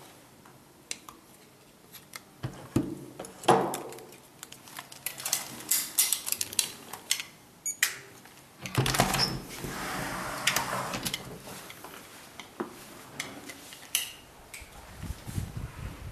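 A key jangling and clicking in a door lock and a metal lever handle being worked, then, about halfway through, the door being pushed open.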